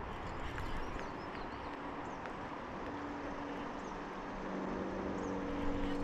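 Open-air river ambience: a steady rushing hiss under a low, steady motor-like hum that comes and goes and grows stronger about four and a half seconds in, with a few faint high chirps.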